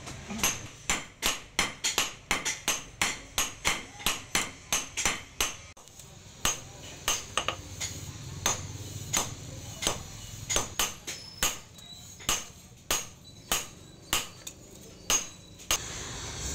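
Hand hammer blows on a red-hot steel file lying on a steel post anvil, forging it into a blade, each blow with a high metallic ring. It starts as a quick, even run of about three blows a second; after a short pause about six seconds in, the blows come slower and more unevenly.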